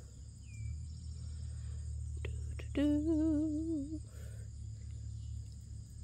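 Steady high drone of insects over a low steady rumble; a little under three seconds in, just after two faint clicks, a person hums a short wavering note for about a second.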